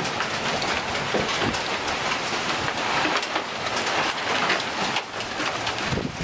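Golf-ball-size hail falling with heavy rain: a dense, steady hiss of rain studded with many sharp clicks and knocks of hailstones striking surfaces.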